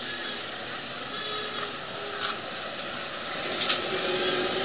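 Street traffic noise, with a city bus moving close by, a few faint brief high squeaks and small knocks over it.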